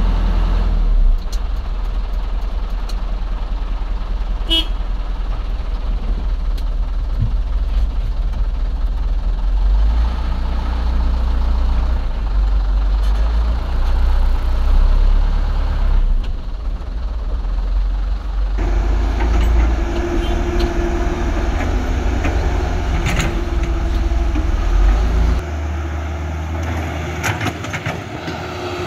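Heavy diesel truck engine sound, a loud, steady low rumble whose character changes abruptly a few times, with a steadier higher tone joining it from about two-thirds of the way through.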